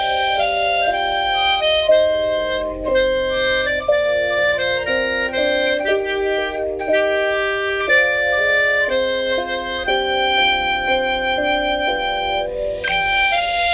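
Melodica blown through its mouthpiece, playing a slow melody in sustained reedy notes, with several notes held together as chords.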